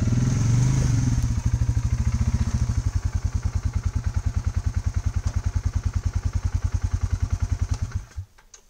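ATV engine running as the quad pulls in and stops, settling to an even idle, then switched off about eight seconds in.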